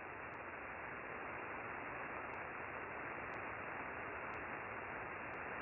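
Even static hiss of an Icom IC-7610's receive audio in single-sideband mode: band noise with no treble above the narrow sideband filter's cutoff, and faint ticks about once a second.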